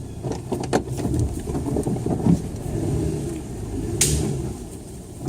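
Truck engine running at low speed while crawling along a tight 4x4 trail, with scattered knocks and a short swish about four seconds in.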